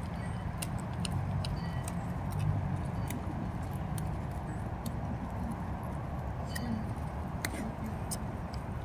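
Puppies rooting and chewing among dry leaves and twigs, giving scattered small crackles, snaps and clicks over a steady low rumble.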